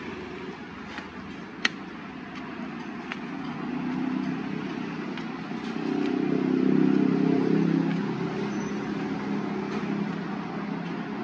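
Street traffic running, with a motor vehicle engine swelling loudest a little past the middle as it passes. A few light clicks and one sharp tap sound over it, the tap within the first two seconds.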